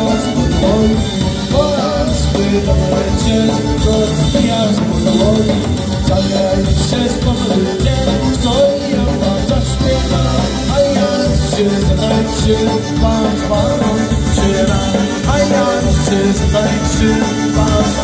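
Polka band playing live: piano accordion, concertina, electric bass, trumpet and clarinet, with singing at the microphones.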